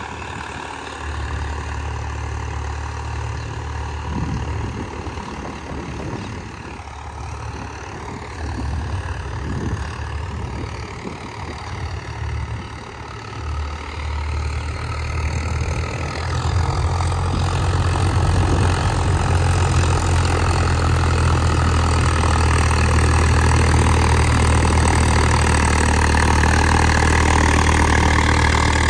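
Diesel engine of a Swaraj 744 FE tractor running steadily. It grows louder about halfway through and stays loud.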